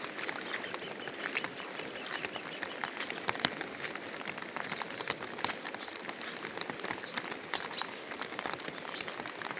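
Light rain pattering steadily, with a few short, high bird chirps about five and eight seconds in.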